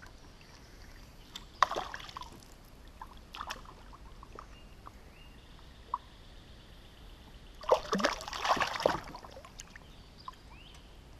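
A hooked snakehead thrashing at the surface beside a kayak, with a burst of splashing about eight seconds in. A couple of sharp knocks come about a second and a half in.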